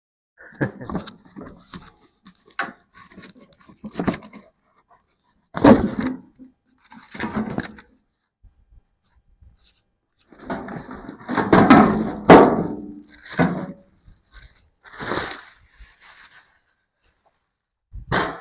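Spells of handling noise as patio-heater parts and packaging are moved about for assembly: scrapes, knocks and rustles lasting a second or two each, with pauses between, the loudest spell about twelve seconds in.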